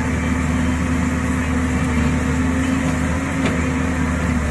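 JCB backhoe loader's diesel engine running steadily at an even pitch.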